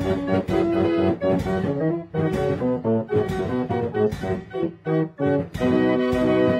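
Instrumental background music with a steady beat: held chords under a run of plucked notes.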